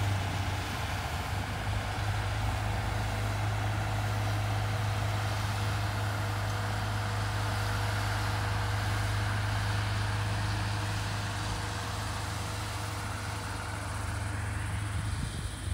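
Heavy diesel construction machinery running steadily: a constant low engine hum with a faint higher steady tone.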